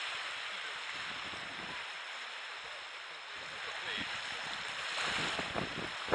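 Wind buffeting the microphone over the steady wash of Baltic surf on a sandy beach, the wind gusting harder near the end.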